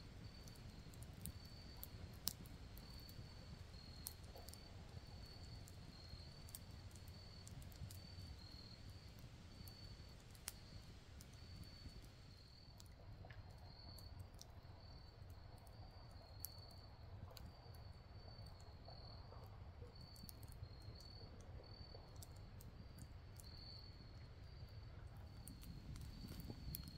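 Faint, steady chirping of a cricket, about two chirps a second, with the sharp pops and crackles of a wood campfire scattered through it.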